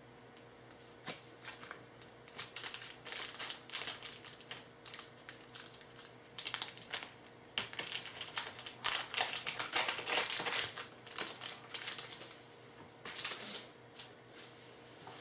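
Trading cards being handled, a run of irregular short rustles, slides and clicks with brief pauses between.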